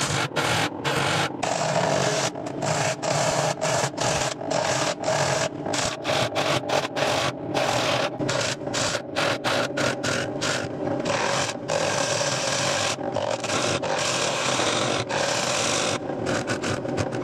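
A gouge cutting the inside of a cherry bowl spinning on a wood lathe. It makes a continuous shaving, scraping noise, broken by many brief drop-outs each second as the cut comes and goes, over a steady faint tone.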